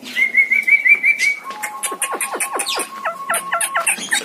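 Javan myna whistling and chattering. It opens with a quick run of about six repeated whistled notes, then breaks into a rapid chatter of sharp, falling, click-like notes and short squeaks.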